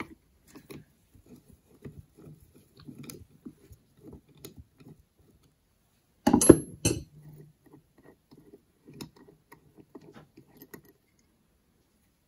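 Light metallic clicks and scrapes of a flathead screwdriver and small brass jets being worked out of a two-barrel carburetor body, with a louder clatter of metal parts about six and a half seconds in.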